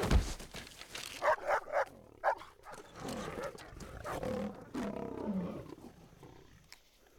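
A stag crashes to the ground under a lioness's attack, a heavy thump right at the start. Several short sharp animal cries follow, then the lions' low, drawn-out growling as they hold the kill, fading out near the end.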